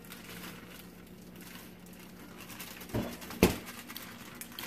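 Powdered sugar being shaken out of a plastic bag into a plastic mixing bowl: faint rustling, with two short knocks about three seconds in.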